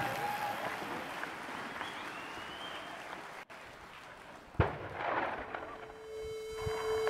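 Outdoor noise of mountain bikes riding over a rocky dirt trail, with one sharp knock about four and a half seconds in. A held musical note begins near the end.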